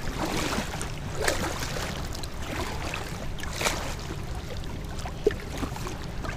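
Lake water lapping and splashing against the hull of an inflatable kayak as it is paddled through light chop, with a few brief louder splashes from the paddle strokes over a low rumble.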